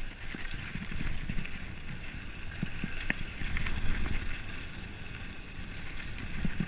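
Mountain bike riding fast down a dirt singletrack: tyre rumble over the bumpy trail, with irregular knocks and sharp clicks and rattles from the bike.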